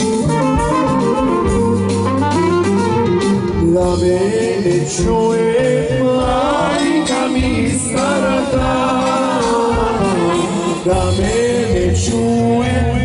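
Macedonian folk song: a melody sung over instrumental band accompaniment.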